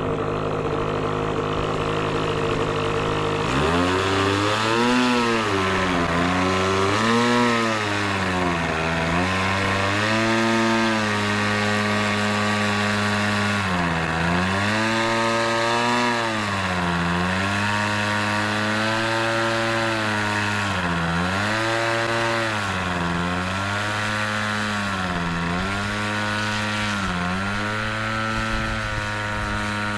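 Engine of a Seagull Boomerang RC trainer plane running, at a steady pitch at first, then from about three and a half seconds in rising and falling repeatedly every couple of seconds.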